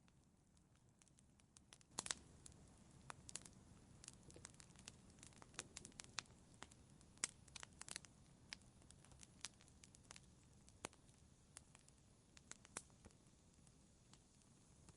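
Wood fire crackling in a fireplace, faint: irregular sharp pops and snaps over a soft low rumble. The loudest pop comes about two seconds in, and the snaps thin out near the end.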